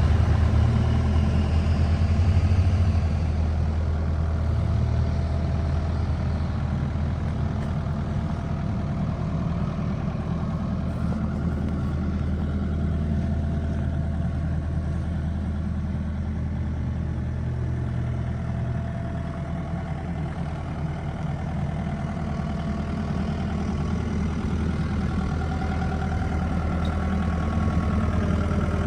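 2007 Bobcat 335 compact excavator's diesel engine running steadily, a little louder for the first few seconds.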